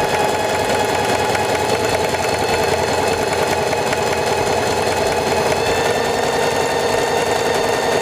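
SINGER 4411 Heavy Duty sewing machine running at a steady speed, sewing a short, wide zigzag stitch: a steady motor whine over the rapid chatter of the needle.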